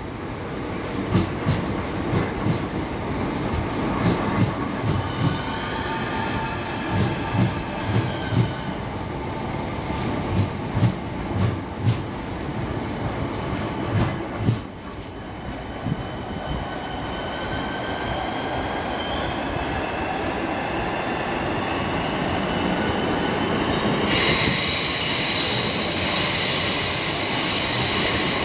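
Electric multiple-unit passenger train pulling out of the platform and gathering speed: wheels thump and clack over the rail joints for about the first fifteen seconds, under a faint electric motor whine that rises in pitch. The passing train then becomes a steadier rush, and about four seconds before the end a steady high-pitched whistling squeal with hiss comes in.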